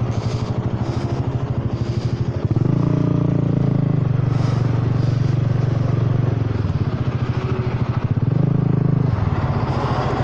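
Honda Forza 300 scooter's single-cylinder engine pulling away and riding on, loud through a broken exhaust that is still not fixed. The revs rise about two and a half seconds in, ease off near seven seconds, then rise and drop again briefly near eight and a half seconds.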